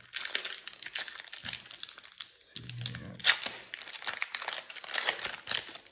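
Foil wrapper of a trading-card booster pack crinkling as it is handled, with irregular crackles and a sharp crackle about three seconds in.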